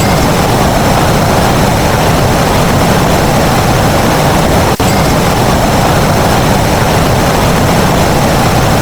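Loud, steady, even noise like a low engine or aircraft rumble, cutting out for an instant about halfway through.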